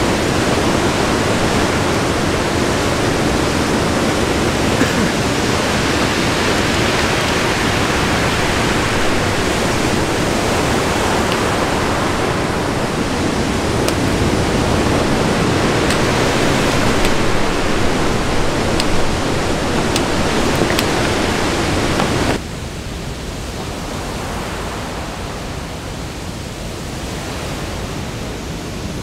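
Steady rushing of a waterfall falling down a coastal cliff onto a beach, mixed with ocean surf. About 22 seconds in it drops abruptly to a softer, more distant rush.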